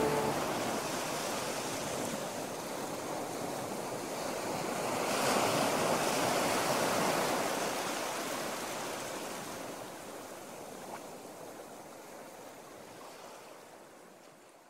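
Rushing noise of surf, with one broad swell about five seconds in, then slowly fading out.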